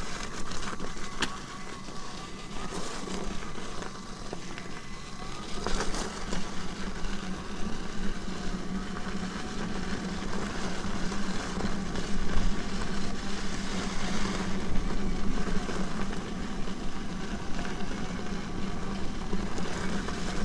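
Commander electric unicycle riding over a dirt and gravel trail: steady tyre and wind noise with occasional jolts. A steady low hum grows stronger from about six seconds in.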